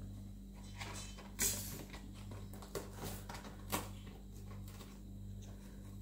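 African grey parrot tearing and biting at a cardboard box with its beak: a few sharp rips and crackles, the loudest about a second and a half in, over a steady low hum.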